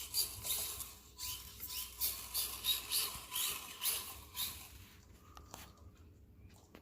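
Drivetrain of an RC car whining in short repeated throttle bursts, about two a second, as it works to climb over tyres, then dying away about four and a half seconds in.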